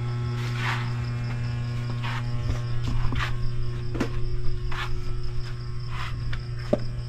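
Steady low hum with crickets chirping in the background, and a couple of light knocks as an aluminium pot is handled and set down on the stove near the end.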